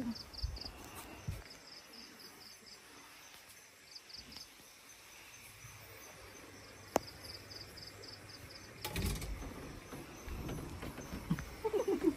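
Night insects chirping faintly in short, rapid pulsed trills that come and go every second or two over quiet outdoor background, with a single sharp click about seven seconds in.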